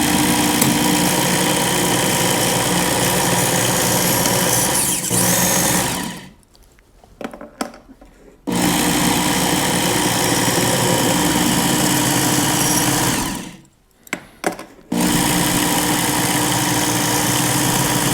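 Work Sharp Ken Onion knife sharpener running at slow speed, a treble hook held to its moving abrasive belt. It is stopped twice for a second or two and started up again.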